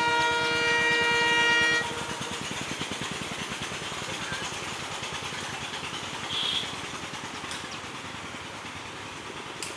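WDM3D diesel locomotive's horn sounding one long multi-tone blast that cuts off about two seconds in, followed by the steady rumble of the approaching train.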